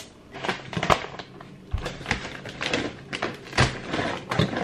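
Breakfast clatter: a spoon and dishes clinking and knocking in a quick, irregular run of sharp clicks.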